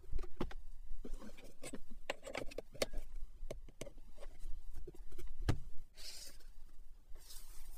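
Hands handling a car's interior trim: a series of sharp plastic clicks and knocks from the centre armrest lid and the storage bin under it, then brief rubbing swishes against the leather seat near the end.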